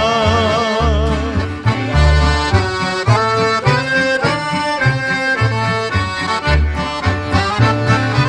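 Accordions playing the melody of an instrumental break in a Serbian folk song, over strummed acoustic guitar and a steady bass beat.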